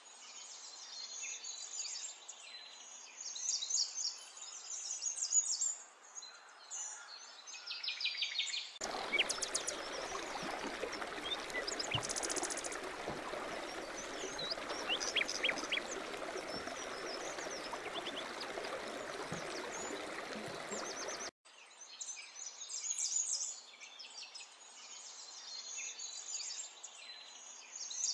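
Birds chirping and calling. About a third of the way in, a steady rush of running water comes in with birds still calling over it. It cuts off suddenly some twelve seconds later, and the chirping carries on alone.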